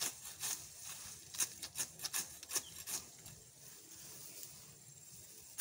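Hand sickle slicing through grass close to the ground in quick, crisp cutting strokes, several a second, thinning out and getting fainter about three seconds in.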